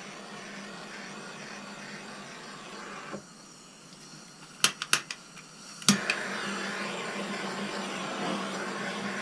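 Handheld propane torch burning with a steady hiss. About three seconds in the flame goes out, a few sharp clicks follow as the torch is relit, and from about six seconds it burns with a steady, slightly louder hiss again.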